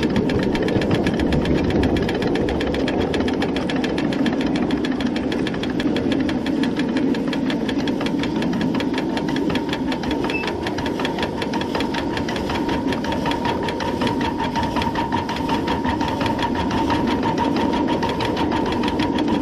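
Inch-and-a-half scale, coal-fired live steam 2-8-0 locomotive, a model of a Long Island H-10, running under steam with a rapid, even beat, heard from close on board. A thin steady tone joins about halfway through.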